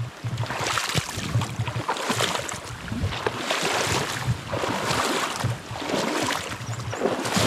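Rushing water of a small stream, rising and falling in uneven surges.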